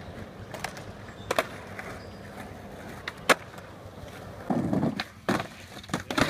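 Skateboard wheels rolling over hard ground, with a few sharp clacks of the board and trucks hitting the ground. The loudest clack comes about three seconds in, and the rolling grows louder for a moment shortly after.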